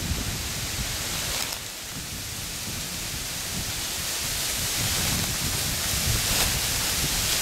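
Wind rumbling on the microphone over a steady rustle, with footsteps through dry fallen leaves.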